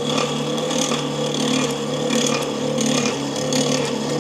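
Forge air blower running with a steady hum, forcing air into a wood fire to intensify it.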